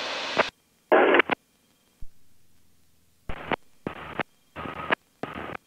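Aircraft headset audio cutting in and out in about five short bursts of radio or intercom sound, each switching on and off abruptly with dead silence between. The first burst, about a second in, is the loudest.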